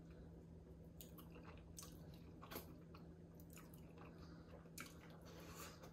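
Faint close chewing of meat, with a few soft wet mouth clicks scattered through, over a steady low hum.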